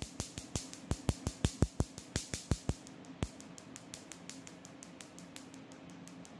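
Picosecond laser handpiece firing a rapid run of pulses on carbon-gel-coated skin, each pulse a sharp snap, about three a second: the carbon peel treatment. The snaps turn much fainter about three seconds in and carry on until near the end, over a faint steady hum.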